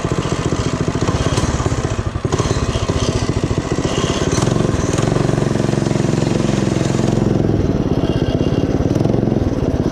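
Coleman CT200U minibike's small single-cylinder engine running as it is ridden. The revs climb about four seconds in as it is throttled up and ease off near the end.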